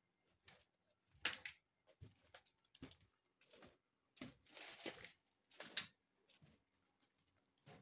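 Faint footsteps and scuffing while walking along a warehouse floor, about one step or scrape every half second to second, a few of them louder, longer scrapes.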